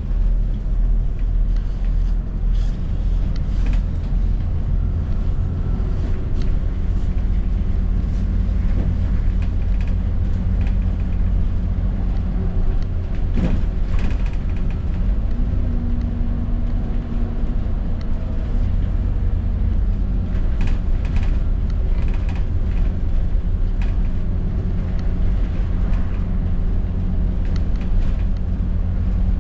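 ADL Enviro400 double-decker bus under way: a steady low engine and road drone whose note shifts now and then, with frequent creaks and rattles from the bus's body and fittings and one sharper knock about halfway through.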